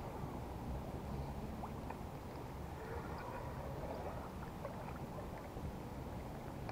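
Water lapping and splashing against the hull of a drifting boat, with a steady low rumble under it and small scattered ticks.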